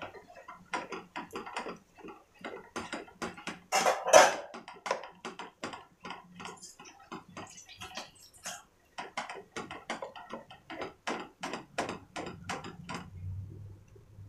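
Spatula scraping and knocking against a dark non-stick pan while mixing cooked rice into the egg masala, in quick repeated strokes of about three a second, loudest about four seconds in and stopping shortly before the end.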